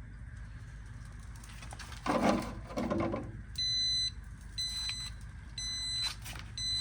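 Jazzy power wheelchair's joystick controller beeping, a high electronic tone repeated about once a second, four beeps starting about halfway in. The beeps are the controller flashing a diagnostic code, though the chair still drives. A short muffled noise comes before them, about two seconds in.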